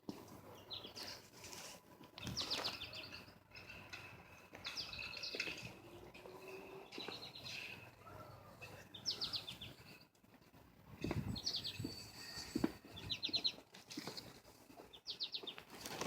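Small birds singing, short rapid chirping trills repeated every couple of seconds. A few knocks are heard between them.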